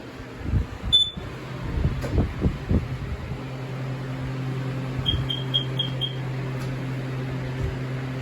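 Knocks and thumps of a step ladder being fetched and handled, over the steady hum of a ceiling fan. About five seconds in come five quick, evenly spaced high beeps, and a sharp click comes at the end.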